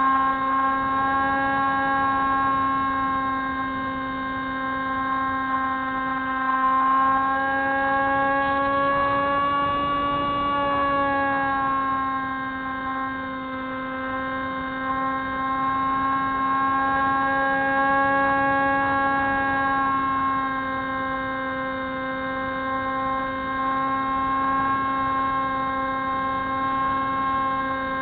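Spyhawk FPV model plane's electric motor and propeller droning steadily with one even pitch. The pitch rises a little about ten seconds in, then settles back.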